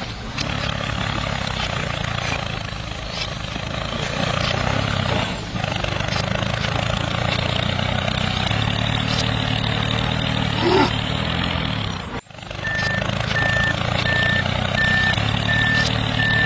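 A tractor engine sound runs steadily with a low, even drone. It cuts out briefly about twelve seconds in, then comes back with a row of evenly spaced high reversing beeps, about one and a half a second.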